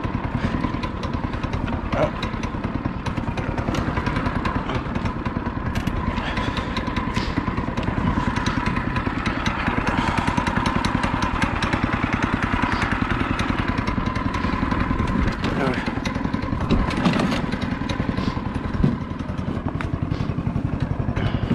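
Yerf-Dog 3203 go-kart's small engine running steadily as the kart drives over snow, with a few knocks and rattles from the frame.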